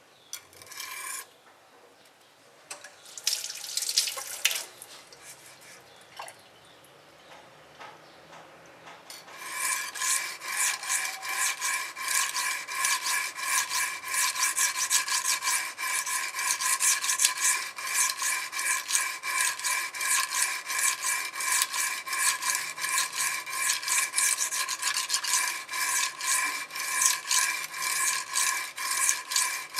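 Stainless steel kitchen knife being stroked back and forth on the coarse side of a wet whetstone: a few separate scrapes at first, then from about nine seconds in a fast, even run of scraping strokes with a steady ringing tone beneath. The strokes are grinding the edge until the burr is raised along its whole length on the other side.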